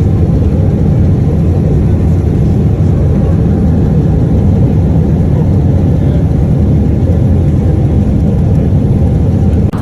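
Aircraft engines running: a steady, loud, low rumble with a faint high hiss on top.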